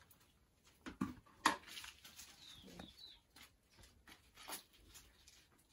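A few sharp knocks and scuffs, the loudest about one and a half seconds in, with smaller ticks scattered after, and a brief high bird chirp near the middle.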